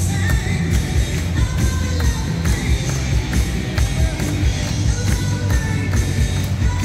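Live stage-show music: a band playing with a steady, even drumbeat and singing.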